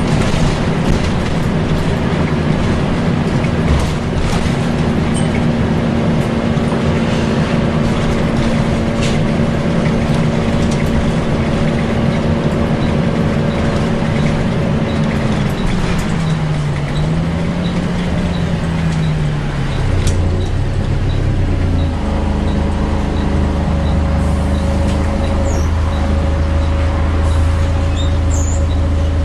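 Volvo B10BLE single-deck bus heard from inside, its engine and radiator cooling fan running with the 'hoover' noise. The engine note drops and wavers about halfway through, then settles to a lower steady drone, with faint regular ticking in the second half.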